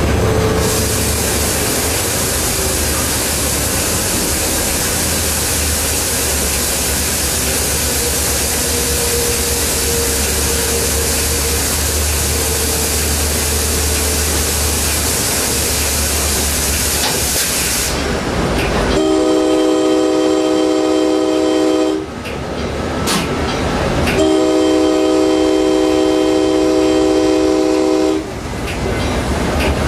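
Moving Coaster diesel locomotive heard from the cab: a steady loud rushing noise over a low engine drone. About 19 seconds in, the Leslie K5LA five-chime air horn sounds a long blast, then a second, longer blast about five seconds later, and a third is just starting at the end.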